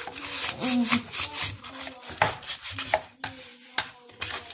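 Coarse salt rubbed by hand over a greasy plastic range-hood part, a gritty scrubbing in repeated, uneven strokes.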